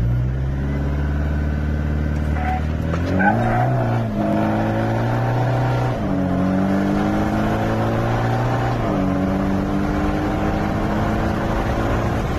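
Chevrolet Colorado's 2.8-litre Duramax four-cylinder turbodiesel with a DT44 turbo, heard from inside the cab on a boosted launch. It holds a steady pitch for about three seconds, then climbs in pitch under hard acceleration, dropping back at upshifts about four, six and nine seconds in.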